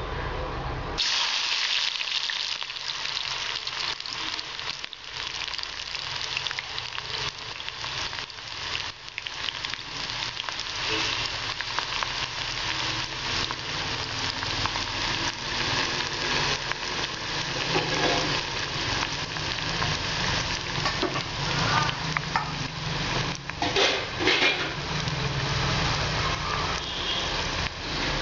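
Sliced onions frying in hot oil in a pan: a steady sizzle that starts abruptly about a second in, with a few brief knocks.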